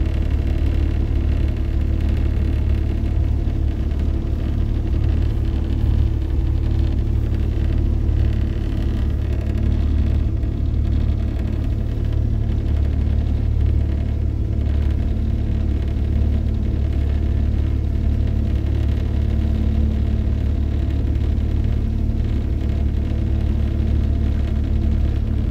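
Mercury 60 hp outboard motor running steadily under way: a loud, even, low drone with water rushing in the wake.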